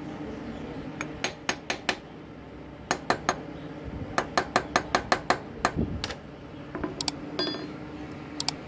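A hammer tapping on a 17 mm socket to drive a new oil seal onto the gear shaft of a Honda CD 70 engine. The taps come as sharp metallic clinks in quick runs of several strikes, with short pauses between the runs.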